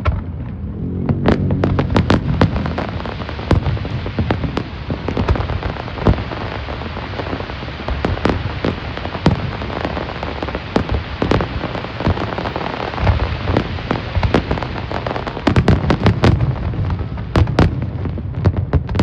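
Fireworks going off: a dense crackling like rain, from many small bursts, with sharp bangs scattered through it and coming thicker near the end.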